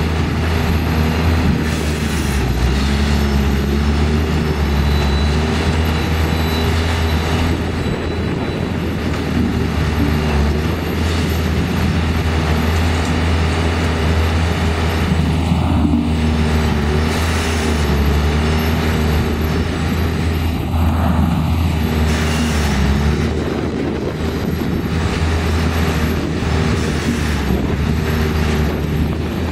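Engines of machines running steadily: a continuous low drone whose engine notes shift slightly up and down now and then.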